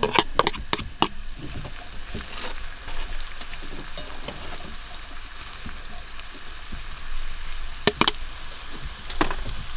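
Chopped onion frying and sizzling steadily in a black pot, stirred with a utensil that scrapes and clicks against the pot. A few sharp knocks come in the first second, and a double knock comes about eight seconds in.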